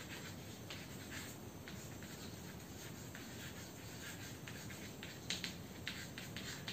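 Chalk writing on a blackboard: faint scratches and taps, stroke by stroke and irregular, a little louder after about five seconds, over a steady low hiss.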